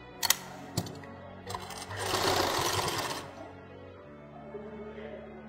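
Sewing machine running in one short burst of stitching, about a second and a half long, as a cloth tape tie is sewn onto the fabric, with two sharp clicks just before it.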